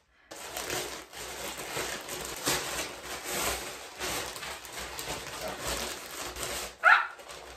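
Plastic shipping bags rustling and crinkling as they are handled and opened, with a short rising squeak near the end.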